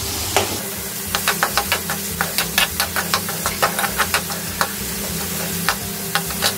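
Steel spoon scraping and clicking against a metal kadai as chopped onions are stirred in hot oil, with a steady sizzle of the onions frying on a low flame. The clicks come about three or four a second, thickest through the middle and thinning near the end.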